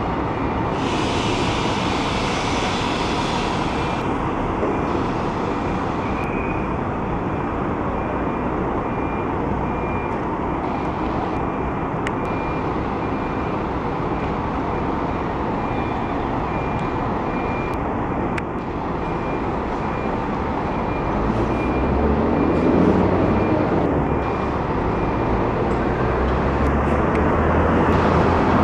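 Diesel engine of a Mercedes-Benz-chassis Marcopolo Paradiso 1800 DD double-decker coach running among other buses, with a high beep repeating about once a second over the first part. The engine rumble grows louder over the last several seconds as the coach pulls away from its bay toward the listener.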